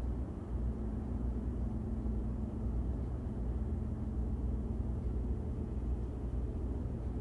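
A steady low rumble with a faint hum in it, even throughout with no distinct events.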